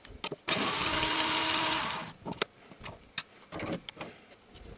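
Cordless drill-driver with an 8 mm socket spinning out a bolt on a Honda Civic's air filter housing: one steady burst of about a second and a half that winds down quickly, followed by a few light clicks of plastic parts being handled.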